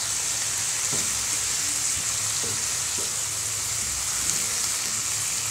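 Shredded cabbage sizzling in a nonstick frying pan while being stirred with a wooden spatula: a steady hiss with a few soft scrapes.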